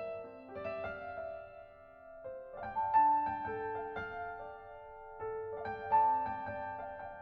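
Background music: a gentle piano melody of held notes.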